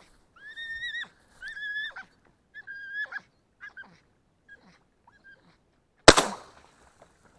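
A series of drawn-out, honk-like animal calls, about one a second, grows fainter and dies away, then a single loud shotgun shot sounds about six seconds in.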